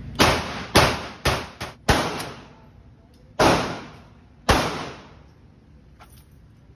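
Gunshots echoing in an indoor shooting range: five shots in quick succession in the first two seconds, then two more about a second apart, each trailing off in the hall's reverberation.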